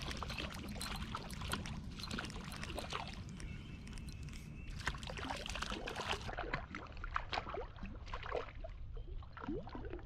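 Water splashing and trickling in a quick, irregular run of small splashes and drips, over a steady low background hum.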